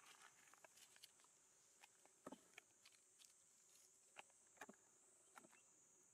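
Near silence: a faint, steady high insect drone, with scattered soft clicks and rustles from small monkeys moving over dry leaves and concrete.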